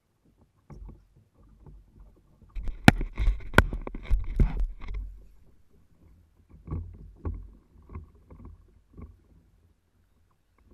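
Knocks and clatter on a fishing kayak, loudest and busiest for about two seconds near the start with two sharp clicks, then scattered lighter knocks and water slapping the hull.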